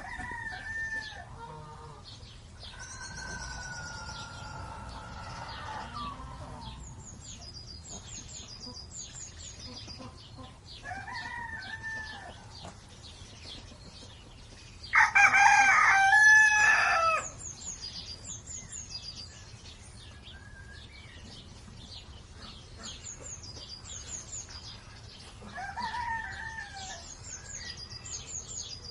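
Farmyard chickens: a rooster crows once, loudly, about halfway through. Quieter fowl calls come now and then, with small birds chirping faintly throughout.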